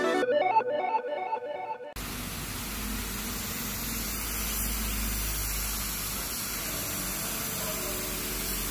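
Background music fades out over the first two seconds, then a gravity-feed paint spray gun hisses steadily as it sprays white paint onto a metal table frame.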